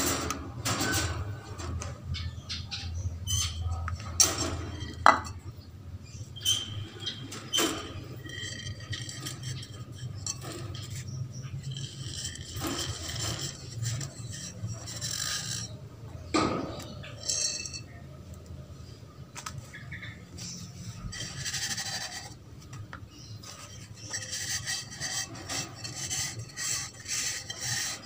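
Wire rabbit cage clinking and rattling as a young Holland lop rabbit moves about on the wire floor and around the bowl, with scattered sharp knocks and scratchy rubbing that grows denser near the end.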